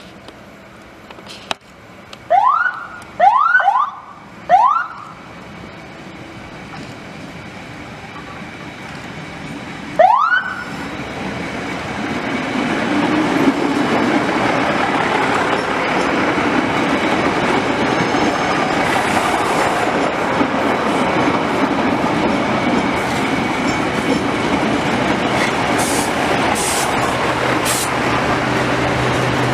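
Siren of the railway inspection railcar Kereta Inspeksi 4 giving short rising whoops, four in quick succession and one more some seconds later, as a warning while it approaches the station. Then the railcar's running noise builds up and stays loud and steady as it comes through.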